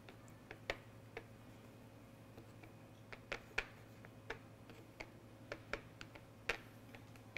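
Wooden spoon stirring thick blended jalapeño sauce in a glass bowl, knocking against the glass in faint, irregular clicks.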